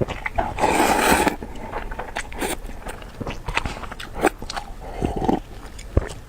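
Close-miked eating sounds of a person eating noodles: a loud noisy burst about half a second in, then chewing with many small clicks.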